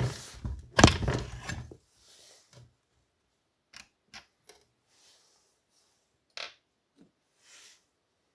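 Clattering knocks of the plastic and metal parts of a partly dismantled Partner 410 chainsaw being handled, a dense burst of rattling in the first two seconds. After that come a few scattered small clicks and taps.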